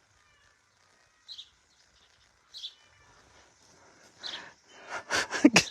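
Short, high bird chirps, three of them about a second or more apart, over a faint steady outdoor background. Near the end comes a louder burst of rustling, crackling noise.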